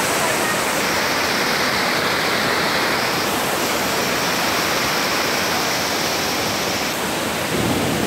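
Large waterfall in rainy-season flood, heavy brown water falling close by: a loud, steady rush of water with no break.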